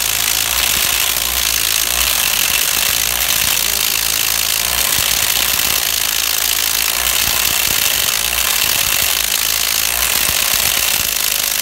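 A Parkside PASSK 20-Li cordless impact wrench and an 18 V Makita impact wrench hammering at once, coupled nose to nose and working against each other: a loud, continuous hammering rattle that cuts off suddenly near the end. The Parkside overpowers the Makita and turns it easily.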